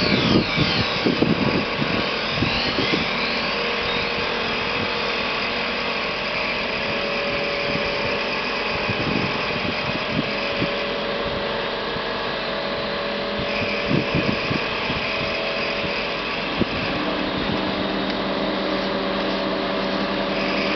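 Motorized knife-sharpening machine running steadily while a knife blade is ground on it. Over the first few seconds the grinding gives high squeals that slide up and down in pitch, with a few short knocks scattered through.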